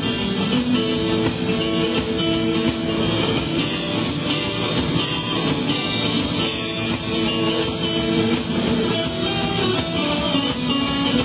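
Live rock instrumental with orchestra: guitar over a full band and orchestra, loud and continuous.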